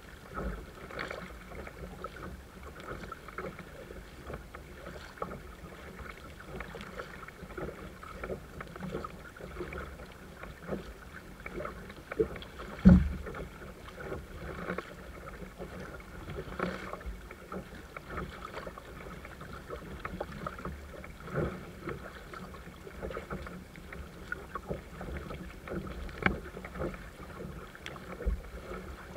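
Double-bladed kayak paddle dipping into sea water, a splash with each stroke, with water washing along the kayak's hull. One loud thump stands out about thirteen seconds in.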